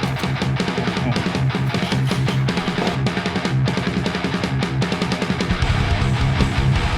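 Heavy metal music: fast, rapidly picked distorted electric guitar over drums, with heavier low bass coming in about five and a half seconds in.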